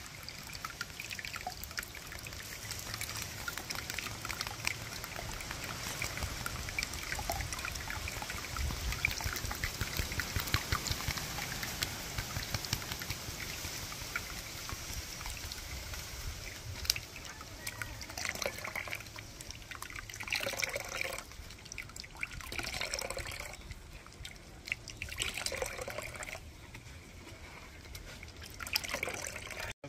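Fruit juice pouring and trickling through a strainer. The trickle is steady for about the first half, then comes in separate short pours of a second or so each.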